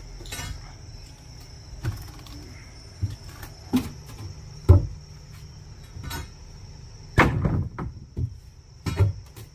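Irregular knocks and cracks of a long steel bar striking and prying up weathered wooden deck boards, about a dozen uneven blows with the loudest near the middle and several close together near the end.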